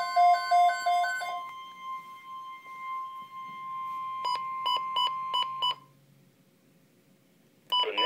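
NOAA weather alert radio alarm: a pulsed, repeating two-note beeping stops about a second and a half in, while a steady high alert tone carries on until it cuts off near six seconds. Just before the tone ends, a quick run of six short beeps comes from the Midland radio's buttons being pressed. After a short near-silence, the broadcast voice begins at the very end.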